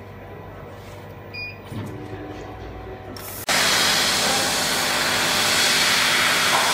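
Laser metal cutting machine humming steadily, then, about three and a half seconds in, a sudden loud steady hiss of the gas jet blowing from the cutting head as it cuts through steel sheet.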